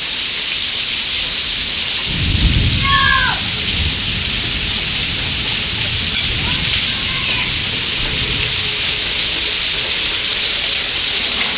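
Heavy rain pouring steadily, with a low roll of thunder rumbling in about two seconds in and fading over the next two seconds. A brief high call falling in pitch sounds around three seconds in.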